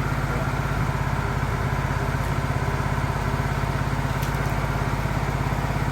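An engine idling steadily with an even, fast putter; nothing else stands out over it.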